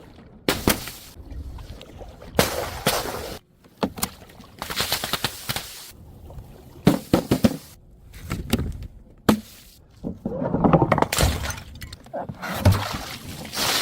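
A series of sharp crashes and crunches, about ten in all, each with a brief clattering tail, like glass bottles and jars being smashed and crushed.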